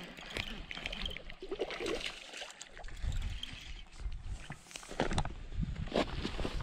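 A hooked largemouth bass splashing at the surface as it is reeled in on a baitcasting reel, with scattered clicks and splashes. Near the end come footsteps crunching on loose shore rock.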